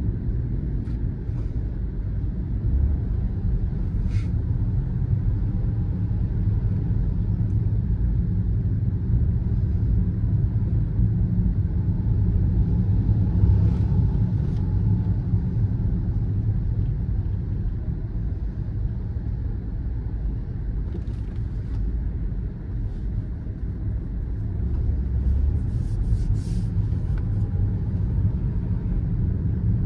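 Car driving: steady low rumble of road and engine noise, with a few faint clicks here and there.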